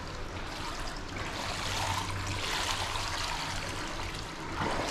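Swimming-pool water trickling and lapping gently, over a steady low hum. The trickling swells a little in the middle.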